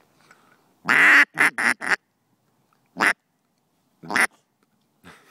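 Duck call blown in a quacking sequence: one long quack about a second in, followed at once by three quick short quacks, then two single quacks a second or so apart.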